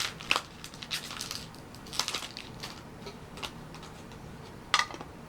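Handling of Pokémon mini tins and booster packs: irregular crinkling of pack foil and sharp clicks and taps, with louder bursts near the start, about two seconds in and near the end.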